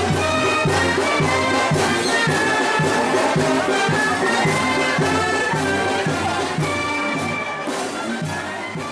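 Brass music playing a Mexican schottische with a steady beat, fading out over the last couple of seconds.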